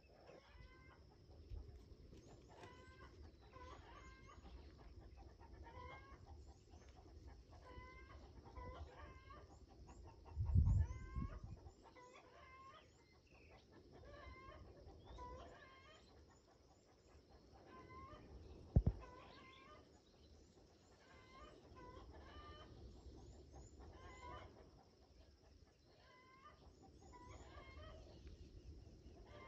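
Chickens clucking repeatedly at a distance, faint, with a thin steady high tone behind them. Two short low thumps, one about a third of the way in and one about two-thirds in, are the loudest sounds.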